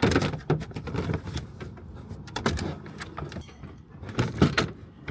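Car door and fittings being handled: a run of knocks and clatter, the loudest right at the start and near the end.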